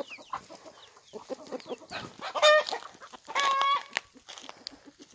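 Chickens clucking, with two louder drawn-out calls a little past the middle, the second one longer.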